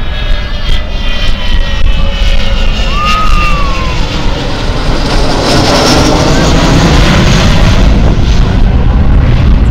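Avro Vulcan XH558's four Olympus jet engines passing overhead: the bomber's howl, its tones falling in pitch over the first seconds, then a loud broad jet roar that swells about halfway through.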